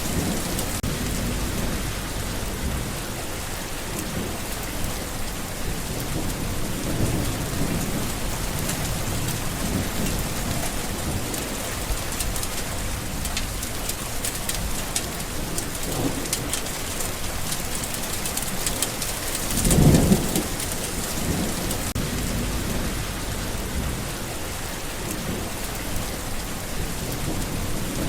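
Steady rain falling, with low rolls of thunder coming and going; the loudest rumble comes about two-thirds of the way through.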